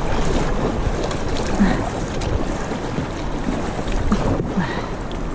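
Kayak paddle blades dipping and splashing in river water with each stroke, over a steady rumble of wind on the microphone.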